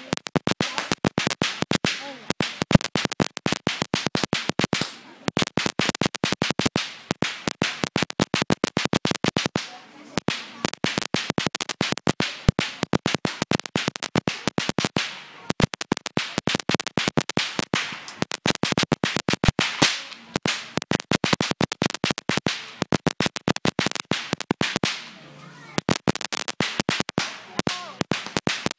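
Strings of firecrackers going off: a rapid, uneven crackle of sharp bangs, many a second, with brief lulls about ten, fifteen and twenty-five seconds in.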